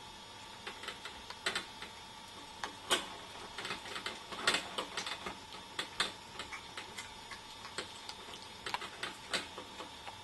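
Irregular light clicks and taps, a few a second and uneven in loudness, over a faint steady high-pitched hum.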